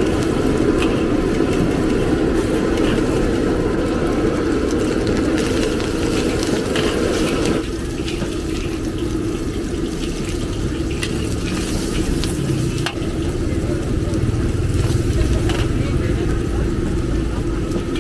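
Stir-frying in a large steel wok: egg and then greens and cabbage sizzling, with a metal spatula scraping and clicking against the pan over a steady low rumble. The frying sound changes in character about halfway through.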